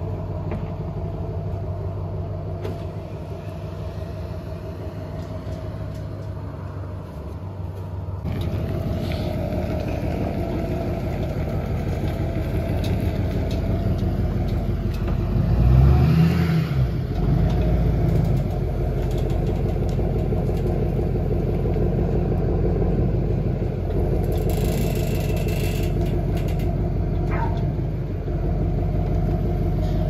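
Pickup truck engine running at low speed while it backs a loaded dump trailer into a driveway, with a brief rise in engine level about halfway through.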